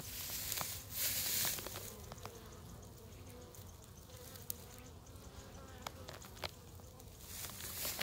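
Honeybees buzzing around a hive entrance, a faint wavering hum that drifts in pitch as bees fly near. Dry grass rustles underfoot in the first second or two.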